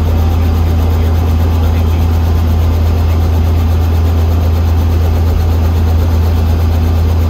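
Robinson R44 helicopter's engine and rotor running while on the ground, heard from inside the cabin as a loud, steady low drone.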